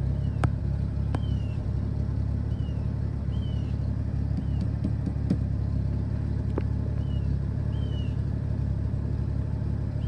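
1974 Ford F-250's 4.9-litre 300 inline-six idling steadily at about 600 rpm, the engine still cold just after starting, heard from inside the cab. A few faint short high chirps come now and then over the steady engine note.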